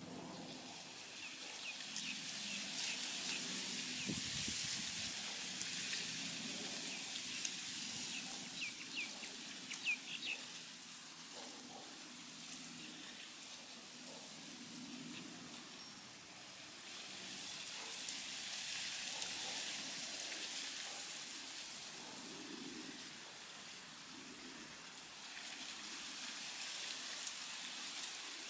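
Guinea pigs munching fresh garden weeds and grass: a steady, crisp crackle of chewing and rustling stems that swells and fades. A few brief high chirps come in the first ten seconds.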